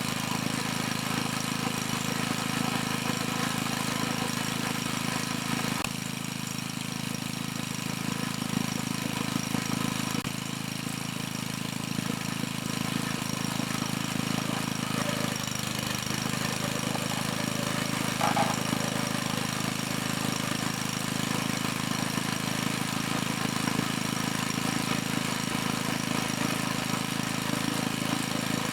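The small engine of an 8-ton hydraulic log splitter running steadily, driving the hydraulic pump on a newly replaced belt, with slight shifts in its tone a couple of times.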